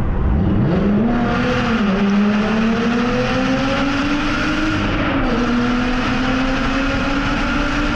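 Lotus Evora's V6 engine revved hard in a tunnel: its note sweeps up sharply in the first second, then climbs steadily under acceleration. About five seconds in the pitch drops briefly at a gear change, and then it climbs again.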